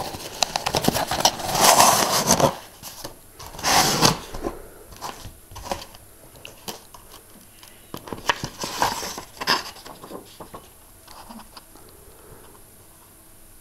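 Cardboard delivery box being handled and its flaps opened: scraping and rustling of cardboard and paper in several bursts, the loudest about two and four seconds in, dying down near the end.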